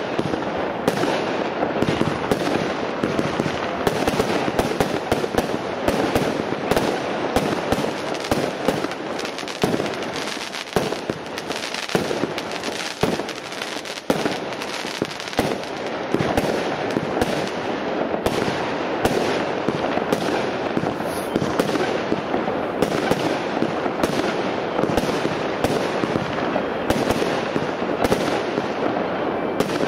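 Blazing Storm 50-shot firework mine cake firing its volleys: a string of sharp bangs and pops, about one or two a second, over a steady rush of noise that does not let up.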